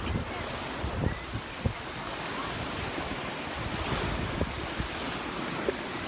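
Gulf of Mexico surf washing steadily onto a sandy beach, with wind buffeting the microphone in uneven low thumps.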